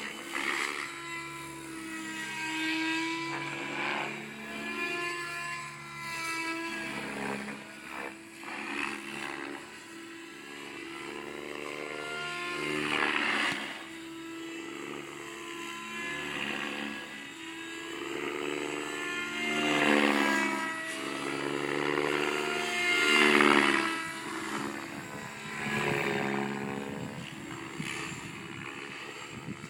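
Electric RC helicopter on a 10-cell LiPo pack in flight, its motor and Edge rotor blades whining, the pitch rising and falling as it manoeuvres. The sound swells louder several times, strongest about 13, 20 and 23 seconds in.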